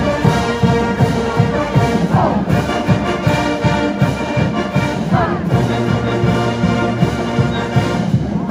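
Marching band playing loudly, brass instruments over a steady pounding drum beat.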